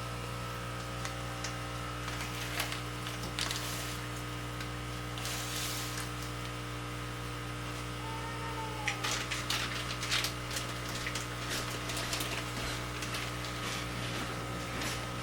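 Steady electrical hum of aquarium equipment, with scattered light clicks and rustles of fish bags being handled, busiest from about nine seconds in.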